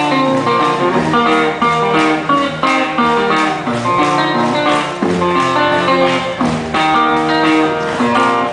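Solo guitar picking a quick, steady run of notes.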